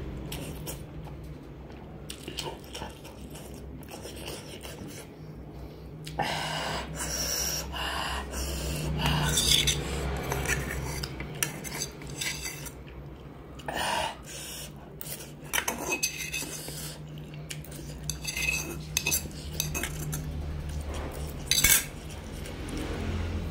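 Metal fork scraping and clinking against a nearly empty aluminium pan as the last noodles and sauce are scooped up, quiet for the first few seconds and then frequent, ending with a sharp clank as the fork is set down in the pan near the end.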